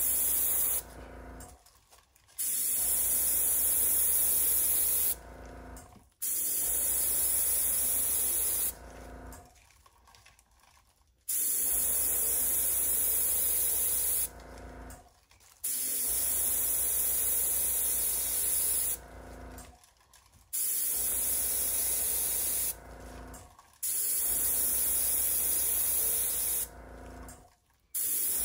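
Compressed air hissing from a blow-out nozzle at about 35 PSI, blowing wet acrylic paint across a canvas, in about seven blasts of two to four seconds each with short pauses between.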